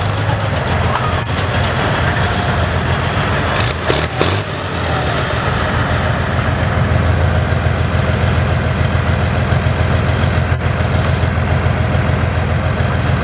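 BMP-2 infantry fighting vehicle's diesel engine running with a steady low drone that grows a little stronger after a few seconds. There are two short sharp knocks about four seconds in.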